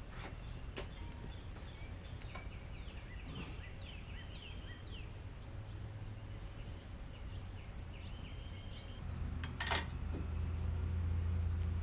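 Birds chirping over a steady high insect buzz, with a few faint clicks and one sharp clack near the end as the brake parts are handled. A low hum comes up in the last few seconds.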